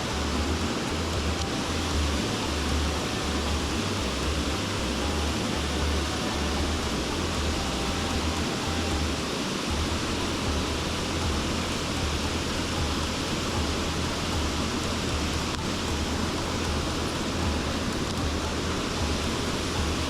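Mountain stream rushing steadily, with a strong low rumble underneath.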